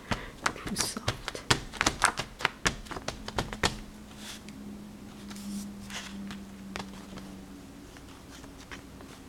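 Oil pastel dabbed and stroked rapidly on paper, a quick run of sharp taps about three to four a second for the first three and a half seconds, then only faint scratching. A low steady hum sits underneath from about four seconds in.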